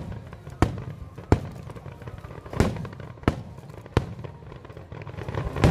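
Aerial fireworks shells bursting: a series of about six sharp bangs at irregular gaps of roughly a second, some followed by a short echoing tail.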